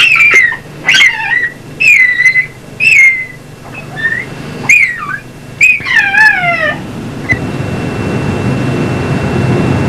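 Caucasian shepherd dog whining: a run of high-pitched whines, about one a second, several sliding down in pitch. After about seven seconds the whining stops and a steady rushing noise remains.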